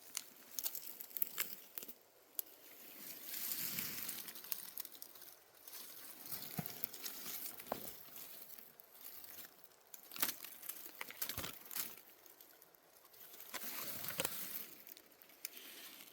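Rustling and crackling of dry forest-floor vegetation and twigs, with scattered sharp snaps and two longer swells of brushing noise.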